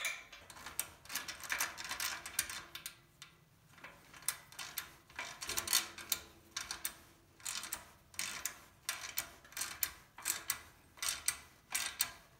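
Ratcheting hand tool clicking steadily, about two to three clicks a second with short pauses, as a screw on the hose reel's U-strap is tightened down onto the steel frame tube.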